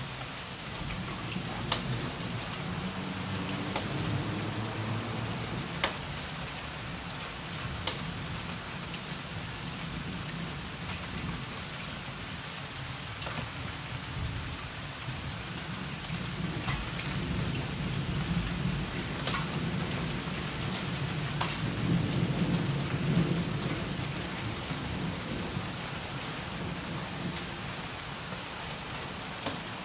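Steady rain falling, with scattered sharp drips close by. Low rolls of thunder rumble under it, a short one a few seconds in and a longer, louder one building from a little past halfway.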